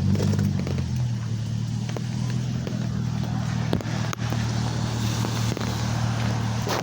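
Steady low hum of a motor vehicle's engine running nearby, with a few short taps and clicks over it.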